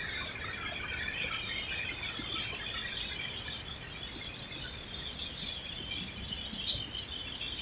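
Insects chirring in a steady, high-pitched chorus, with a faint low background rumble underneath.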